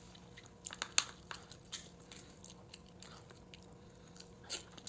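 A person chewing and eating close to the microphone, with irregular small mouth clicks and smacks.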